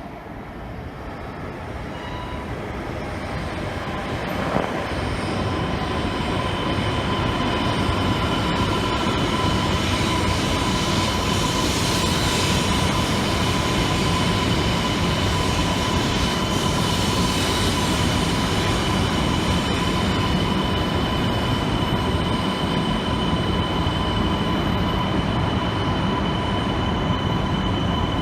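Tohoku Shinkansen train running along the platform. It grows louder over the first six or seven seconds, then holds steady with a continuous high whine over the running noise.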